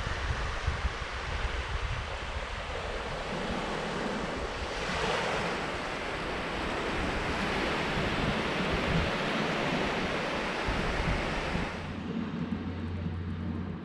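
Small waves breaking and washing up a sandy beach in a steady hiss, with wind gusting on the microphone at first. About two seconds before the end the surf sound cuts off abruptly to a muffled low rumble.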